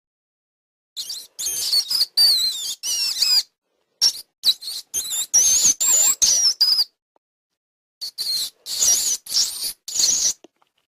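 Mouse squeaking sound effect: three bursts of rapid, high-pitched squeaks that slide up and down in pitch, each cut off to dead silence before the next.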